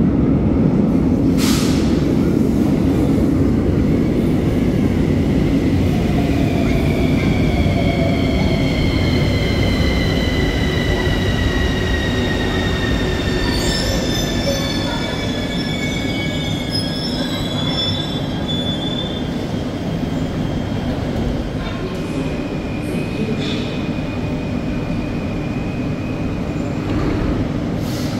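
Bucharest Metro train, a Bombardier Movia set, pulling into the station and braking to a stop. A heavy rumble of wheels on rails at first, then several whines that fall in pitch as it slows, with a steady high tone near the end as it stands at the platform.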